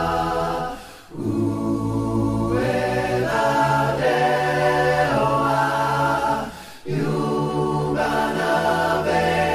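Background music: a choir singing slow, held chords, breaking off briefly twice between phrases.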